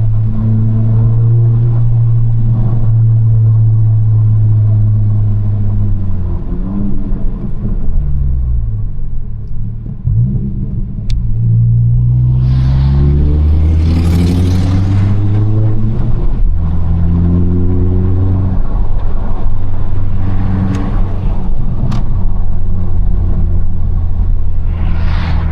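Honda Civic Si's turbocharged 1.5-litre four-cylinder engine revving up and down through gear changes, its pitch falling and climbing several times. Short turbo hissing rushes come about halfway through and again near the end.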